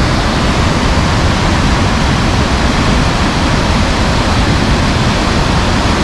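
Large waterfall and the white-water rapids below it: a steady, loud rush of falling and churning water.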